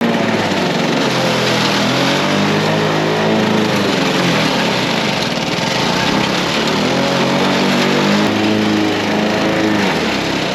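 Petrol lawn mower engine running under load while scalping grass, its pitch wavering up and down as the load changes.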